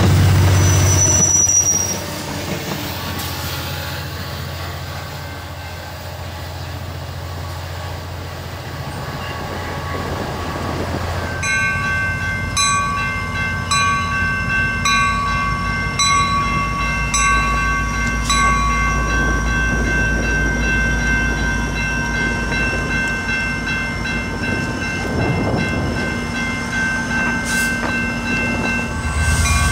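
Level-crossing bell ringing steadily from about a third of the way in, under a low diesel rumble that grows as a train approaches. At the start the loud rumble of a passing bilevel commuter train breaks off after about two seconds.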